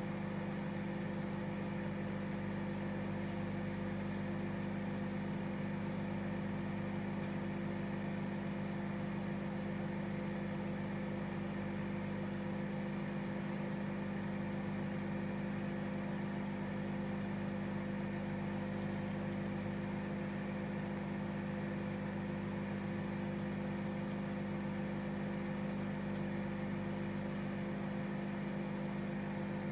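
Microwave oven running a cooking cycle: a steady hum, with a few faint ticks.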